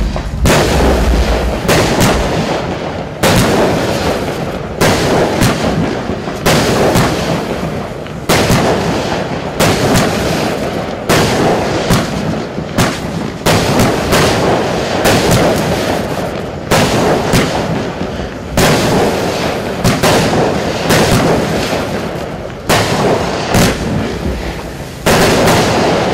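Lesli 'Vortrex' 20-shot large-calibre fireworks cake firing shot after shot, a sharp bang about every one and a half seconds. Each bang is followed by a fading crackle from the gold bouquets with crackling tips.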